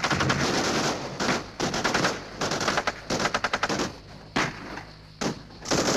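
Small-arms gunfire breaking out all at once: rapid bursts of automatic fire with single shots, stopping and starting every second or so.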